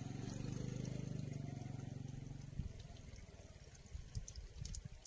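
A small engine running with a steady low hum, which cuts off about two and a half seconds in. Irregular low thumps follow.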